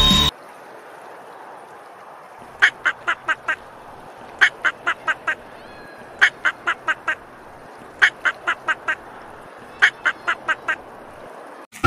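Duck quacking in five evenly spaced runs of about five quick quacks each, one run every two seconds or so, over a faint steady hiss.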